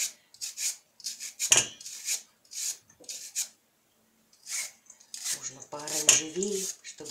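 A carrot being cut into thin strips with a handheld julienne peeler: a run of short, quick rasping strokes, with a pause of about a second in the middle.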